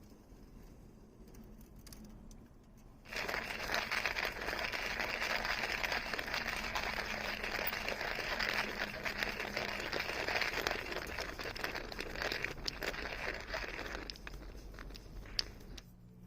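Coffee grinder grinding beans: a dense, steady crunching that starts abruptly about three seconds in and stops about eleven seconds later, followed by a single sharp click near the end.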